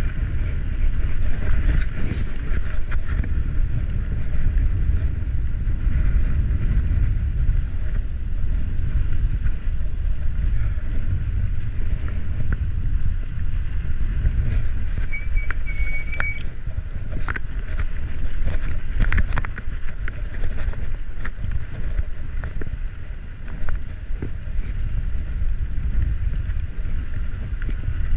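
Wind rushing over the microphone of a camera on a moving bicycle: a steady rumble. A brief high chirp sounds a little past halfway.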